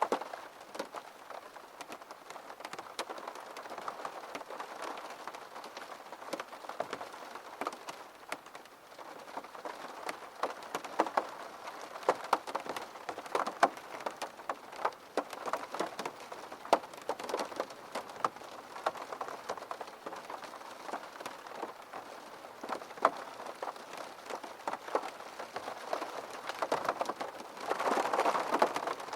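Steady rain falling, with many distinct drops pattering and ticking on a hard surface; it swells a little louder near the end.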